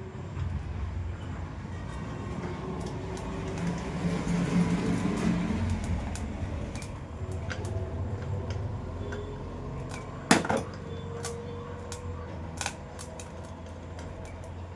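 Metal parts of a ceiling fan being handled as the housing halves are put back together and screws fitted after a bearing change: rubbing and rattling, small clicks, and one sharp metal clank about ten seconds in that rings briefly.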